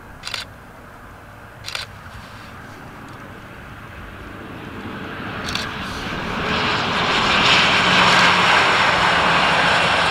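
Embraer ERJ-145's two rear-mounted Rolls-Royce AE 3007 turbofans, a jet rush and whine swelling steadily as the jet rolls past on the runway and loudest in the last few seconds. Two sharp clicks sound in the first two seconds.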